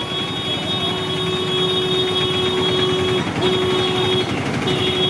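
Road traffic noise with a vehicle horn held in one steady note for about three seconds, then sounded twice more in shorter blasts.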